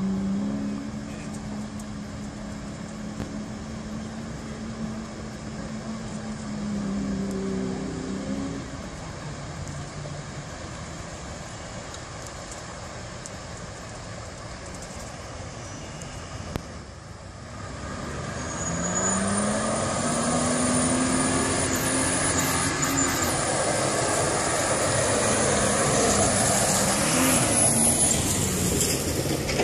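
4x4 SUV engines revving and easing off as the vehicles drive through flowing floodwater, over a steady rushing noise. About 17 seconds in the sound breaks off briefly, and the engine sound comes back louder.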